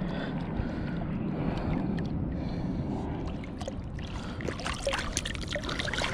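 Water sloshing and splashing as a fish is let go back into the water, the splashing picking up about four seconds in, over a steady low rumble of wind on the microphone.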